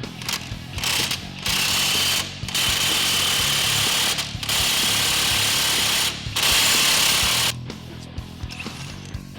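Impact wrench driving the screw of a ball joint press in four bursts of a second or so each, forcing a Jeep's lower ball joint out of the steering knuckle. Background music runs underneath.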